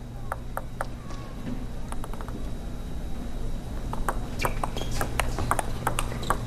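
Table tennis ball bounced a few times before a serve, short ringing pings about a third of a second apart. About four seconds in, a fast rally starts: quick sharp clicks of the celluloid ball off paddles and the table, several a second.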